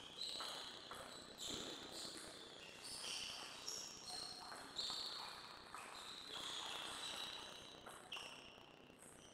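Faint, overlapping high squeaks of sports shoes on the court floor, with a soft knock about a second and a half in.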